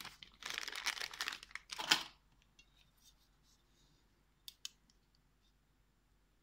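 Clear plastic bag crinkling for about two seconds as hands pull a metal book ring out of it, followed by two light clicks about halfway through.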